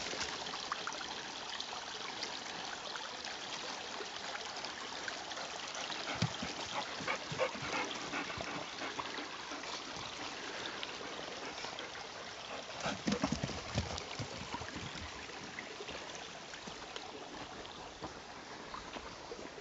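Small stream trickling steadily, with scattered rustles and clicks and a brief cluster of louder thumps a little past the middle.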